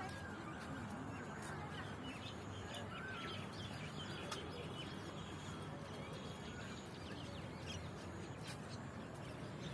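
Outdoor garden ambience: many small birds chirping in short, scattered calls over a steady low hum of road traffic, with a few faint clicks.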